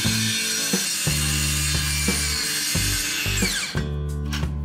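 Lotus LTCS18V-180BL brushless cordless circular saw cutting through plywood: a dense high whine and cutting noise that winds down in pitch about three and a half seconds in and stops as the trigger is released. Background music with a steady beat and bass line plays throughout.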